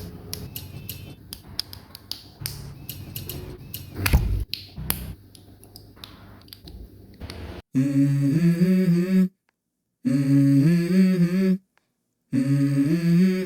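Sharp plastic clicks and snaps of model-kit parts being fitted together, over a low hum. About halfway through, music takes over: a pitched melody in short phrases broken by silent gaps.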